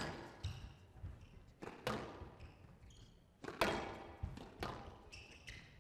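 Squash rally: a series of sharp cracks as the ball is struck by rackets and hits the court walls, the loudest about three and a half seconds in. Short high squeaks of court shoes come in between.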